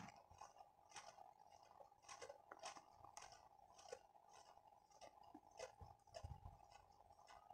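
Near silence with faint, crisp clicks and crackles, many times: metal tongs handling toasted puff pastry strips on a plate. A faint steady tone runs underneath.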